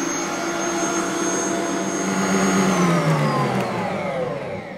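Electric stand mixer whipping egg whites, its motor running at a steady high speed, then switched off a little under three seconds in, the pitch falling as the beaters spin down.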